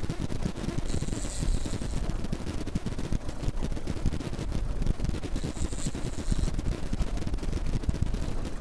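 Strong wind buffeting the camera microphone on a boat in rough, choppy water: a fast, irregular low rumble and crackle throughout. Twice, about a second in and again near six seconds, comes a brief high hiss lasting about a second.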